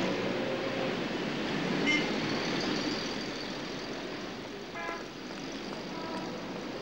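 City street traffic noise, with a car horn honking briefly about two seconds in and again near five seconds.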